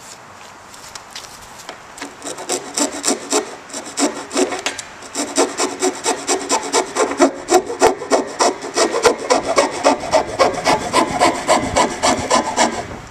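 A hand-held hacksaw blade sawing through the plastic top of a 55-gallon barrel in quick back-and-forth strokes, about three a second. The sawing starts about two seconds in and stops suddenly shortly before the end.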